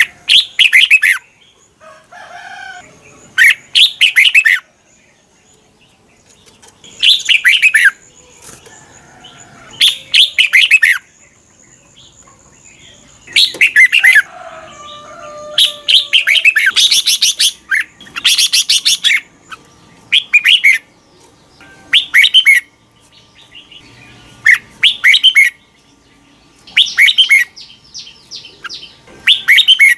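Red-whiskered bulbul singing: about a dozen short, loud phrases of rapid chattering notes, one every two to three seconds.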